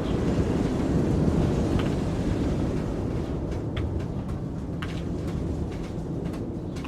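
A rolling rumble of thunder, loudest at first and slowly dying away, with a few short high ticks above it.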